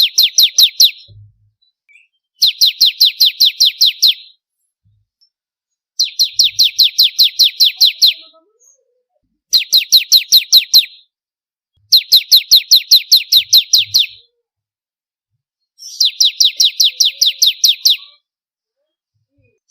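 Ciblek (bar-winged prinia) singing: bursts of rapid, evenly repeated sharp high notes, about six a second, each burst lasting around two seconds and coming every three to four seconds.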